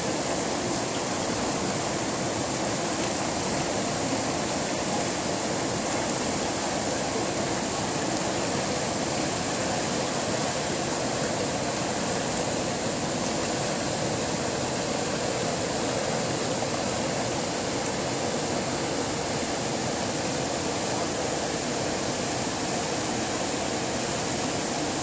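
River water rushing over rocks in whitewater rapids below a weir spillway: a steady, even rush of moving water.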